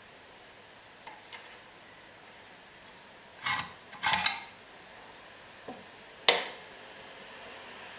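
A few short scrapes and rattles of hard parts being handled, then one sharp click a little after six seconds.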